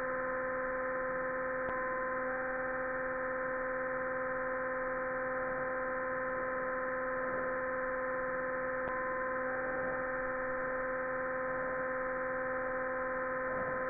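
Steady electronic buzzing drone of a mock emergency alert broadcast: a low hum with a stack of even overtones, holding unchanged, with a few faint clicks.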